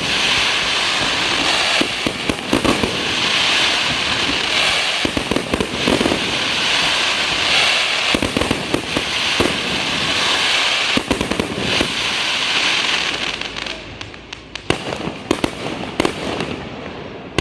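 Fireworks going off: a dense, continuous run of bangs and crackling that thins out about fourteen seconds in to scattered pops.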